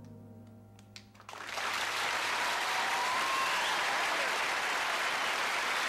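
The last held note of a song fades out. A little over a second in, a studio audience breaks into applause that holds steady, with a couple of faint whistles.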